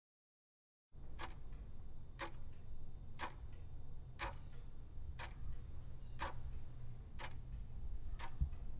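Clock-tick countdown sound effect: a sharp tick about once a second, eight ticks in all, over a steady low hum. It starts suddenly about a second in and cuts off abruptly near the end.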